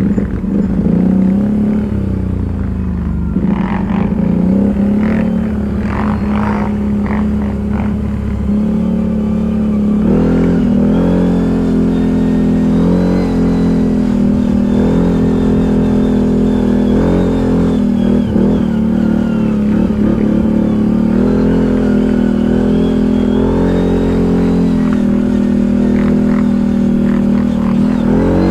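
ATV engine running with changing throttle, its pitch rising and falling as it rides. A few sharp knocks come about four to seven seconds in.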